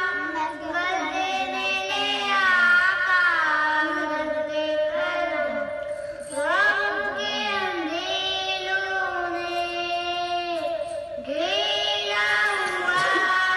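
A boy singing a devotional naat solo into a microphone, in long phrases with held, gliding notes and short pauses for breath about six and eleven seconds in.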